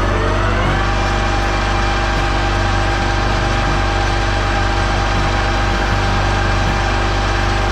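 Stanko 1K62 lathe running: a pitched whine rises for about the first second as the spindle comes up to speed, then holds steady over a strong low motor hum.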